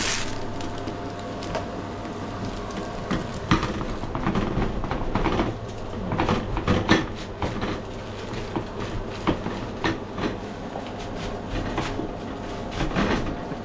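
Serrated bread knife sawing back and forth through the hard crust of a round sourdough loaf, making an uneven run of crunching, crackling strokes.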